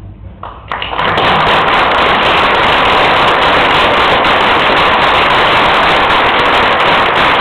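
Loud audience applause: many hands clapping, swelling up within the first second and then holding steady.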